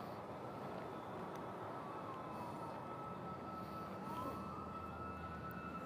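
Faint emergency vehicle siren wailing, its pitch sliding slowly down, then up, then down again, over a steady hum of background traffic noise.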